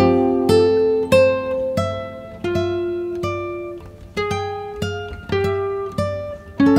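Background music: an acoustic guitar playing a slow melody of single plucked notes, each ringing out and fading before the next, about two notes a second.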